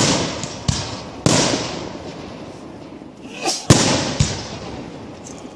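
Aerial firework shells bursting overhead: five sharp bangs, three in quick succession, then after a pause two more, each trailing off in a long echoing rumble. A swelling whoosh comes just before the fourth bang.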